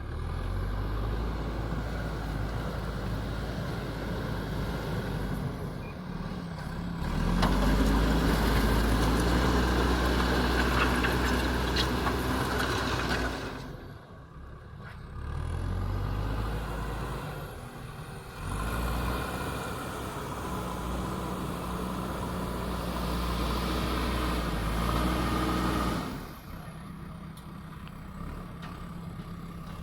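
JCB backhoe loader's diesel engine revving up and easing off repeatedly as it works. There are two long, louder surges, with a brief drop between them, and it settles to a lower, steadier run near the end.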